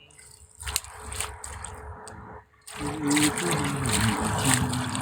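Water trickling and splashing, in use for washing. It drops away briefly, then comes back louder and fuller about three seconds in.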